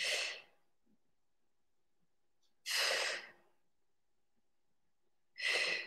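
A woman breathing out hard through the mouth three times, about two and a half to three seconds apart, with the effort of a dumbbell exercise.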